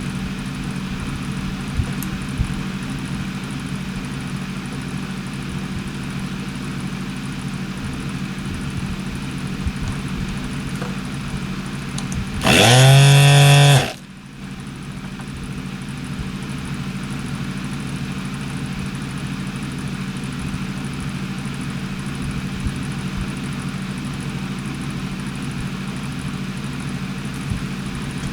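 Soldering fume extractor fan running with a steady hum. About twelve seconds in, a loud mechanical whirr lasts about a second and a half and cuts off suddenly.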